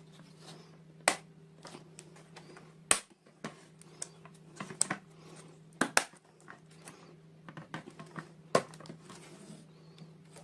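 Irregular sharp clicks and light taps of small plastic pieces and packaging being handled close up, over a steady low hum.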